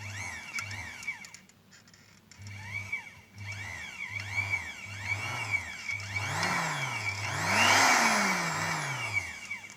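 Electric sewing machine motor run through its foot pedal, speeding up and slowing down in a string of short presses, with a pause about two seconds in and the longest, fastest run near the end. It is a test of the repaired pedal's speed control.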